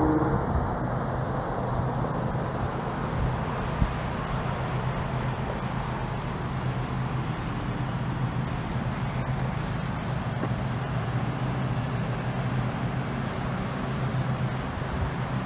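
Steady motor vehicle noise: a low engine hum under road and tyre noise, with one short click about four seconds in.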